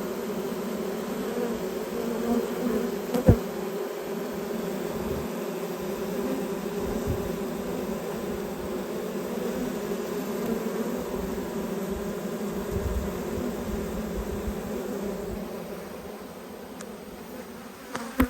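Dense, steady buzzing of many honeybees in the air around an opened hive, the sign of a defensive, agitated colony disturbed by the inspection and smoke. The buzzing eases somewhat near the end, and a single sharp knock sounds about three seconds in.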